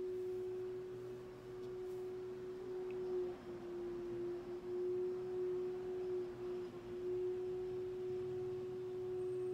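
A steady humming tone, one even pitch held throughout with a faint higher overtone, dipping slightly in level around the middle.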